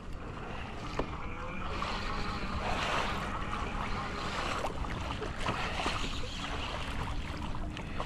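Choppy water slapping and splashing against a moving kayak's hull, with wind buffeting the microphone.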